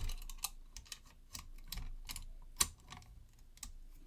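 Metal lock-picking tools clicking and scraping inside a Yale lever lock as its levers are worked. The clicks are light and irregular, with a sharper one about two and a half seconds in.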